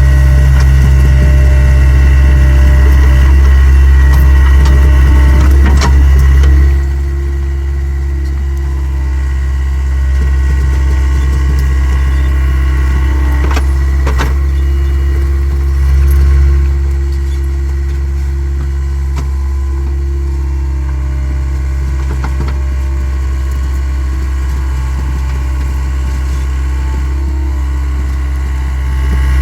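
Takeuchi TL26 skid steer's diesel engine running steadily, with a deep hum. It drops noticeably in level about seven seconds in, swells briefly midway, and picks up again near the end, with a few sharp knocks along the way.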